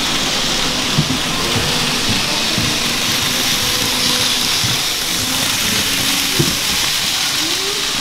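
N-gauge model trains running on a large layout: a steady hiss of wheels and motors with a few scattered faint clicks.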